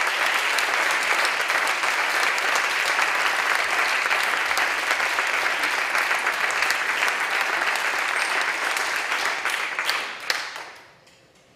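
Audience applauding steadily, then dying away about ten seconds in.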